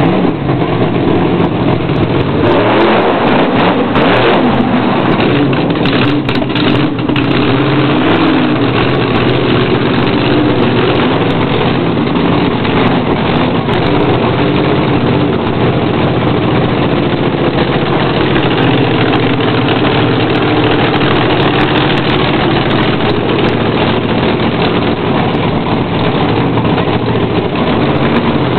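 Monster truck engine running loud and revving continuously, its pitch rising and falling as the throttle is worked, with a few sharp knocks between about three and seven seconds in.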